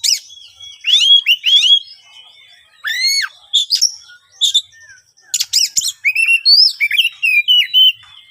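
Oriental magpie-robin (kacer) singing loud, rough, varied phrases of quick rising and falling whistles and harsher notes, in several bursts with short pauses between them.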